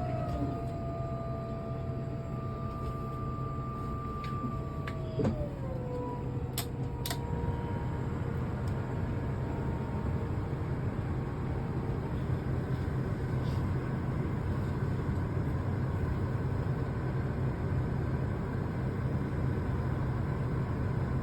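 Thor ACE 30.3 motorhome's leveling jacks retracting: a steady hydraulic pump whine over the running engine. About five seconds in there is a clunk, and the whine's pitch drops.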